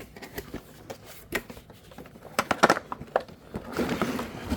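Tabletop game pieces and box being handled: scattered light clicks and clatters, with a stretch of rustling near the end.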